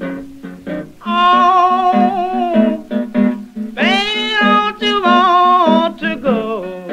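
Music: an acoustic guitar song with picked notes, and a voice singing long, bending notes from about a second in until near the end.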